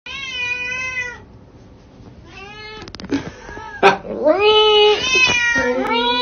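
Tabby cat meowing: one long meow, a short lull, then a run of loud meows, one after another. A brief sharp click about four seconds in.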